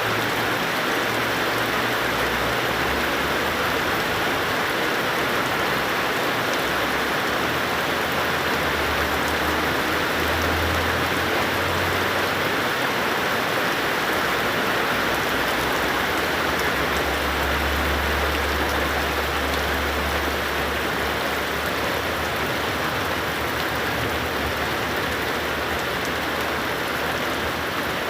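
Heavy rain falling in a steady, even hiss, with a faint low rumble swelling briefly twice.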